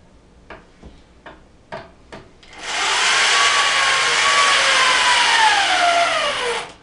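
A few light knocks, then an electric drill runs for about four seconds, its motor pitch sinking steadily as it works under load before cutting off.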